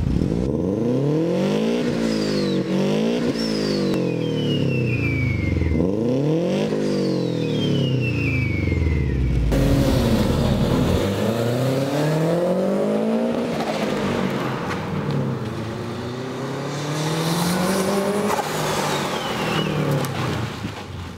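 Subaru Impreza 2.0's flat-four engine running through a handmade 3-inch exhaust with a Remus-copy silencer, revved up and down about eight times. High whistles fall away as the revs drop several times.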